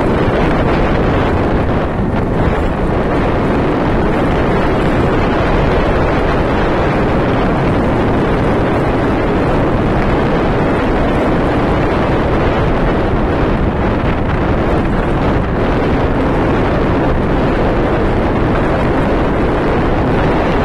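Freight train of covered wagons rolling past close by, a steady rumble of wheels on rail, overlaid with strong wind rushing on the microphone.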